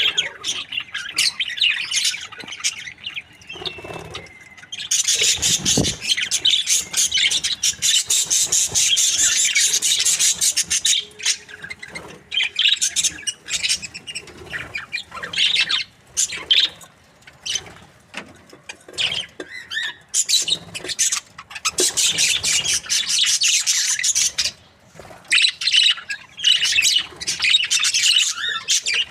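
Budgerigars chattering, a dense stream of rapid high chirps and squawks in bouts, the longest lasting several seconds, with short pauses between them.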